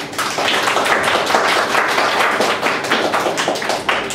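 Audience applauding: a small crowd's dense, loud hand-clapping that thins out near the end.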